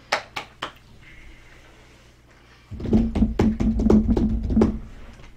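Handling noise on the tabletop that carries the microphone: a few sharp clicks, then about two seconds of loud, dense knocking and rattling with a low rumble as a hand moves things about near the mic.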